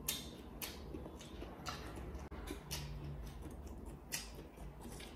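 Faint eating sounds: chewing a mouthful of stir-fried instant noodles and ham, heard as soft, irregular clicks several times a second.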